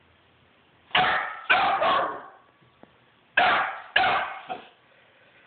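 Puppy barking at a cat, six sharp barks in two runs of three.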